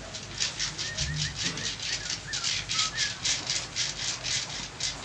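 Fast, even swishing of hands rubbing over oiled skin in a massage, about five strokes a second. A small bird chirps a few times in the first half.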